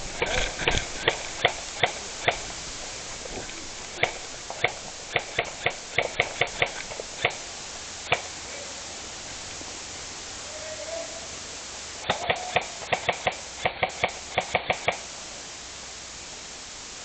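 Airsoft guns firing strings of single shots, sharp snapping clicks several a second, in three runs: at the start, from about four to eight seconds in, and again from about twelve to fifteen seconds in.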